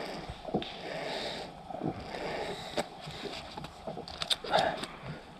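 Close rustling and scraping of clothing and gear against spruce undergrowth, with a few sharp ticks and snaps, several bunched together near the end.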